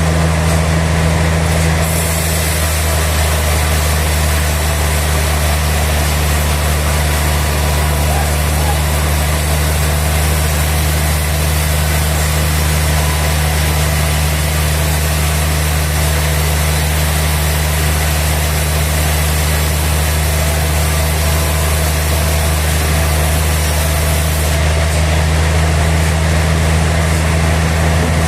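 Sawmill machinery running steadily with a deep, even hum. A brighter hiss comes in about two seconds in and drops away a few seconds before the end.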